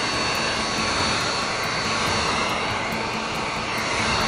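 Handheld electric heat gun running steadily, its fan blowing hot air across freshly poured epoxy resin to pop surface air bubbles: an even rush of air with a faint hum.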